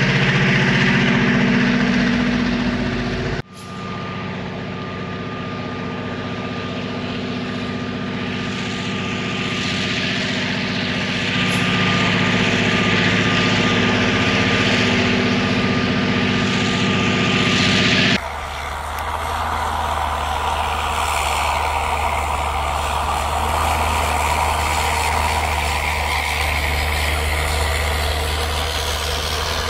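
Union Pacific rotary snowplow train plowing deep snow: the heavy diesel locomotives run hard with a steady low drone, under the rush of snow being thrown. The sound drops sharply and shifts about three and a half seconds in, and changes again a little past halfway.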